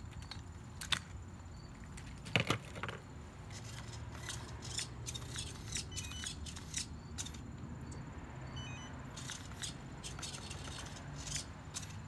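Scattered light clicks and taps from hands handling a homemade RC truck chassis and its radio transmitter, with two sharper clicks in the first few seconds.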